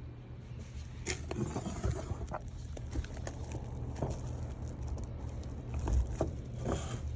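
Scattered light clicks and taps of kitchen handling, with a low steady hum underneath.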